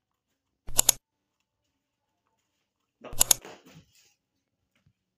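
A cat crunching on a freshly caught mouse: two short, sharp crunches, one about a second in and another a little after three seconds.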